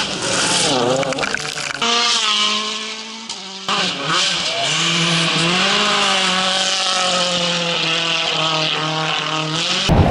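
World Rally Car engines revving hard, the pitch rising and falling as the drivers work through the gears, in several short clips cut together abruptly, over a steady hiss.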